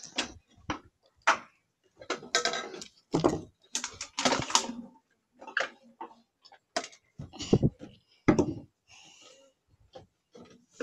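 Irregular knocks and clatters, several a second at times, from metal cups and tins being handled and set down during children's pretend-cooking play.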